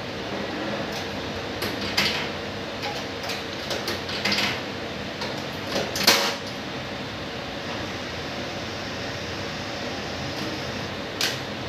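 Coin-operated face mask vending machine clicking and clunking: a handful of short metallic knocks, the loudest about six seconds in as a coin goes into its coin acceptor, over a steady hum.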